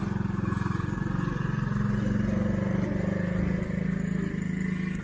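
Small engine of a children's quad bike running steadily as the ATV is ridden.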